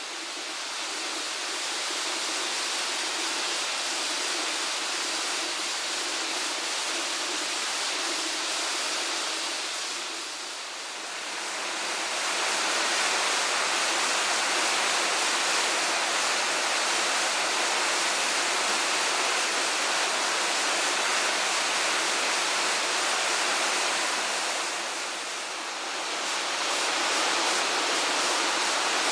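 Waterfall: the steady, loud rush of water falling from Tanashita Fudo Falls, dipping briefly twice.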